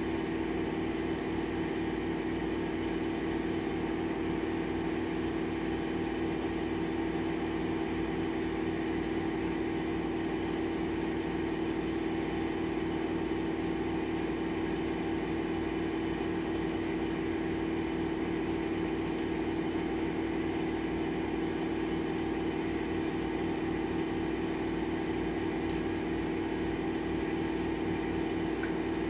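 Steady machine hum with an even low throb underneath, unchanging in level; a few faint clicks.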